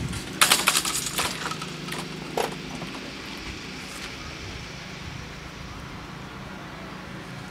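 Level-crossing barrier booms with hanging lattice skirts coming to rest in the down position: a loud metallic rattling clatter about half a second in, lasting about a second, and one more clack a little after two seconds, then only steady low background noise.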